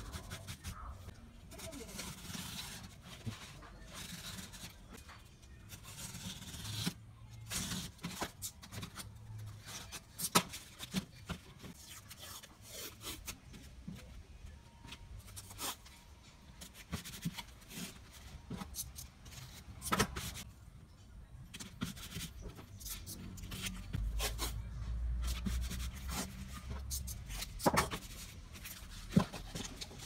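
Hands working corrugated cardboard and masking tape on a cutting mat: a pencil scraping across the board, tape being pressed down, and the cardboard being folded. Scattered sharp taps and clicks run throughout.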